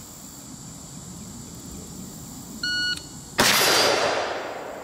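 An electronic shot timer gives one short, steady, high start beep. About three-quarters of a second later a single shot is fired from an AR-15 carbine, a sharp report whose echo fades over about a second. The beep-to-shot gap is the 0.77 s split the timer reads.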